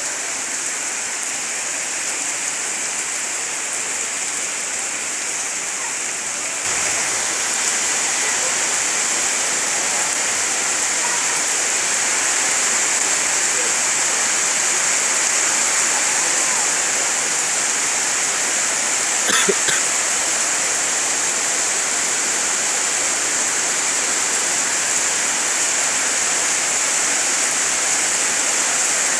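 Heavy rain pouring down steadily, getting louder about a quarter of the way in, with a short knock about two-thirds through.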